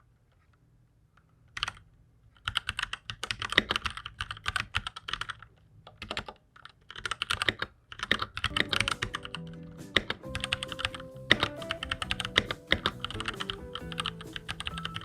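Fast typing on a Keychron K6 mechanical keyboard: quick runs of clacking keystrokes, with a short pause about six seconds in. Background music joins about halfway through.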